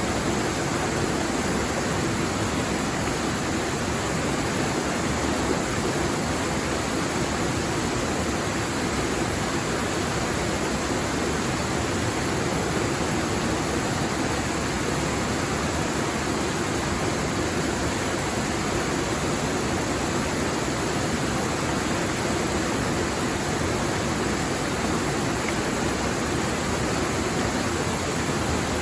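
Small waterfall on a clear stream: water falling and rushing in a steady, unbroken hiss.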